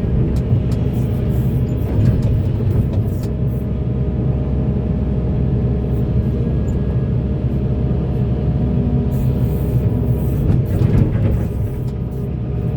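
Volvo EC480DL excavator working, its diesel engine running steadily with a low drone, with scattered knocks.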